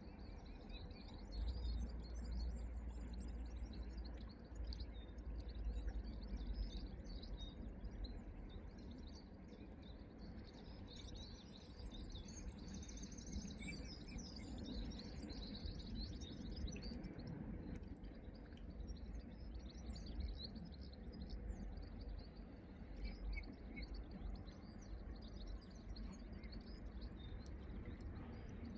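Small songbirds chirping and singing throughout, busiest in the middle, over a low rumble of wind on the microphone.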